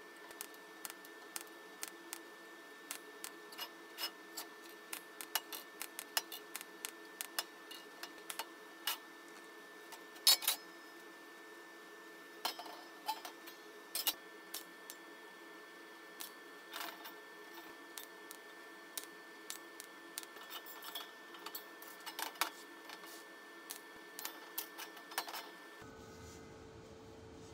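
Metal parts clinking and knocking as a stainless-steel wire grill basket and a square steel tube are handled and slid together on a steel welding table: many small irregular clicks, with one louder clank about ten seconds in, over a faint steady hum.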